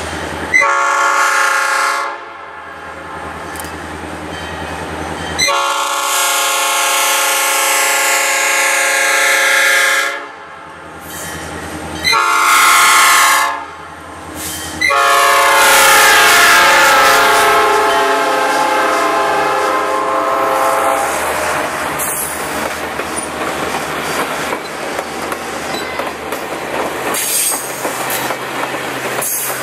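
Diesel locomotive's air horn sounding four blasts: short, long, short, then a long one that falls in pitch as the locomotive passes close by. The passenger cars then roll past with wheels clacking over the rail joints.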